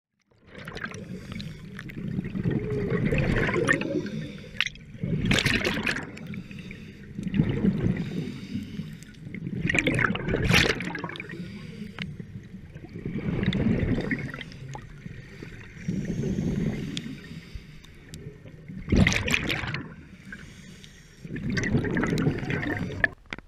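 Scuba diver breathing through a regulator, heard underwater through the camera housing: low bubbling exhalations alternate with sharper hissing surges in a slow cycle that repeats every few seconds.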